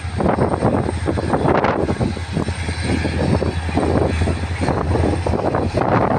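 Diesel locomotive engine running with a steady low drone as it approaches, hauling a passenger train.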